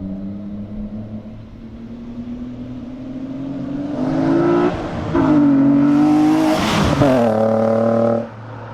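VQ35 3.5-litre V6 in a Nissan 240SX with a custom exhaust, accelerating past. The engine note climbs and drops briefly about five seconds in, then rises again and is loudest as the car goes by about seven seconds in. The pitch falls after the pass, and the sound cuts off abruptly near the end.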